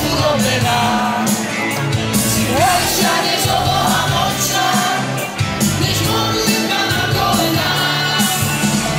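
Upbeat music with a singing voice over a steady beat.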